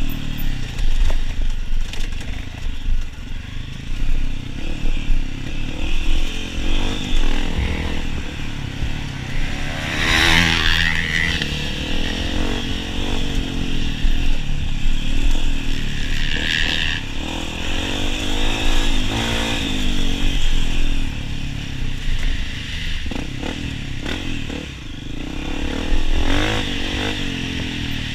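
Honda CRF250F's single-cylinder four-stroke engine under hard riding off-road, its pitch rising and falling again and again as the throttle is worked, with knocks and clatter from the bike over rough trail.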